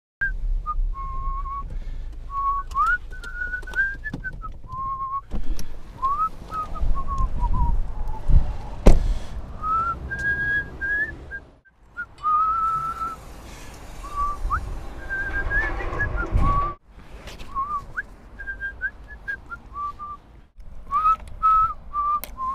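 A person whistling a tune in short notes that rise and fall, over a low background rumble with a few knocks. The whistling breaks off abruptly a few times.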